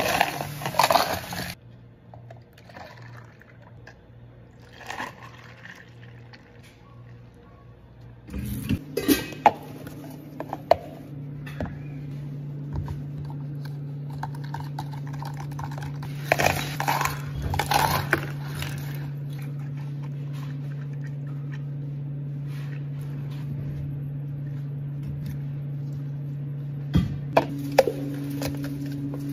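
Bubble-tea drinks being made in plastic cups: a thick blended smoothie and ice poured and clattering, a bar spoon clinking as iced tea is stirred. A steady low machine hum runs from about a third of the way in.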